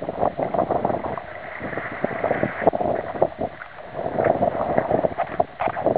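Shallow water lapping and splashing against rocks, an uneven run of small splashes.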